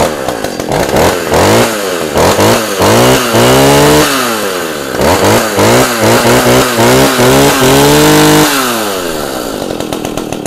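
A 41cc two-stroke chainsaw running, its throttle blipped up and down again and again. Near the end it is held at high revs, then it drops back to a steady idle.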